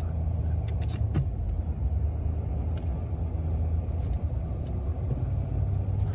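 Pickup truck engine pulling steadily under load in four-wheel-drive low while climbing a slippery, rain-soaked dirt hill, heard from inside the cab as a low drone. A few sharp clicks and knocks come about a second in.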